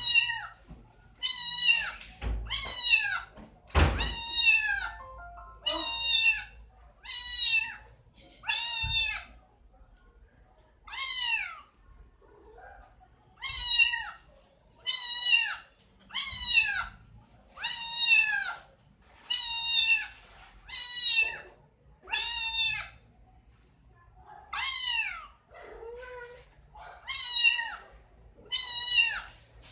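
Kitten meowing over and over, about one high-pitched, downward-sliding meow a second. Two low thumps come about two and four seconds in.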